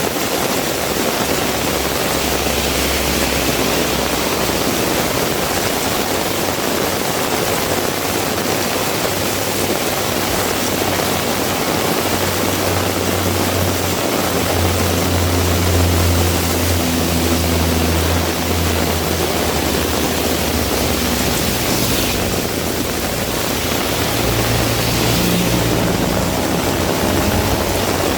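Heavy rain pouring steadily. A low engine hum, like a passing vehicle, swells about halfway through and comes back briefly near the end.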